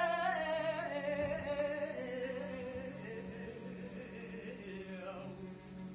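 A solo voice sings a long, wavering held note that slides down in pitch and fades away over about five seconds, over a steady low hum.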